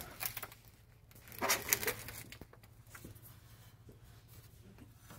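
Rustling and light clicking handling noise, with one louder rustle about a second and a half in, over a faint steady low hum.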